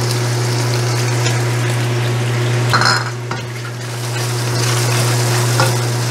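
Chopped garlic sizzling in hot oil in a stainless steel wok, stirred with a silicone spatula that clicks and scrapes against the pan, over a steady low hum.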